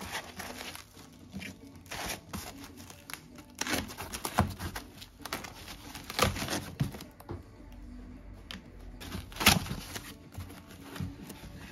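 Foam packing inserts being pulled, rubbed and scraped against each other and the wooden crate, in a string of irregular rustling scrapes, the loudest about three quarters of the way through, over background music.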